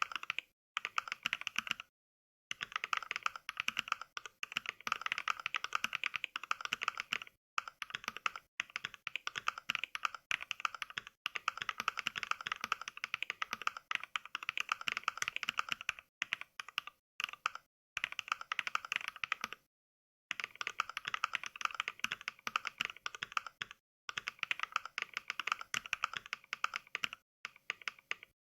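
Fast typing, each keystroke sounded as a simulated mechanical switch from the Mechvibes NK Cream sound pack rather than the real keyboard. Quick runs of clicks are broken by brief pauses every few seconds.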